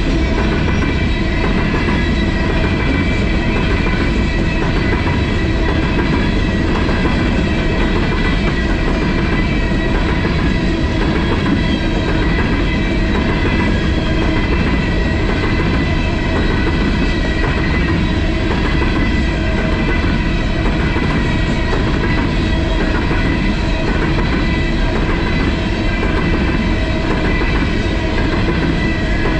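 Empty ore cars of a freight train rolling past: a steady rumble of steel wheels on rail with a faint, regular clickety-clack.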